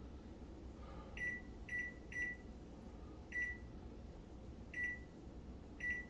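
GE over-the-range microwave's touch-pad beeping as its buttons are pressed to set the clock: six short, high beeps at uneven intervals, one per key press.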